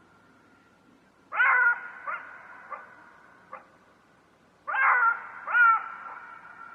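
An animal crying out three times: one pitched cry about a second in and two more close together near the end, each trailing off slowly.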